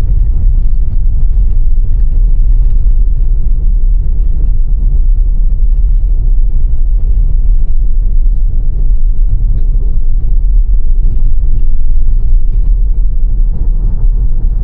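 Steady low rumble of a Tesla electric car driving on a snow-covered road: road and tyre noise with no engine sound.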